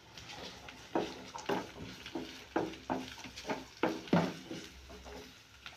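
Wooden spatula stirring and scraping chopped onions frying in oil in a nonstick kadai, in short strokes about two to three a second, with the oil sizzling softly underneath.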